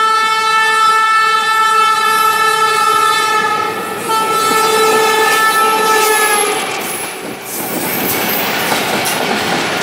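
Diesel locomotive's horn sounding one long blast that wavers briefly about four seconds in and stops about six and a half seconds in, warning as the train runs through the station without stopping. Then the passenger coaches rumble and clatter past close by.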